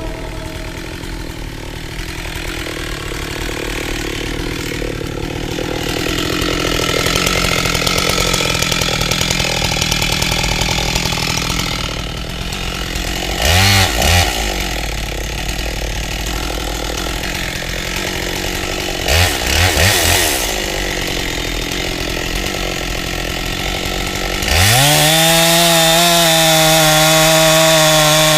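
Husqvarna 385XP two-stroke chainsaw running at part throttle, blipped twice briefly, then opened up to full throttle and held steady for the last few seconds.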